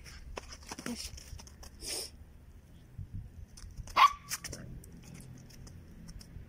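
A puppy gives one short, sharp bark about four seconds in, the loudest sound here, among a few soft clicks and rustles.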